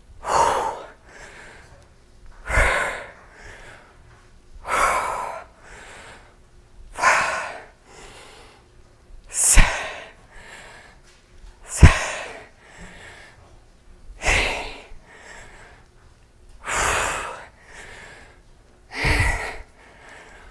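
A woman breathing hard through a set of barbell squats: a forceful exhale with each rep, about every two seconds, with quieter breaths between. Two short low thumps near the middle.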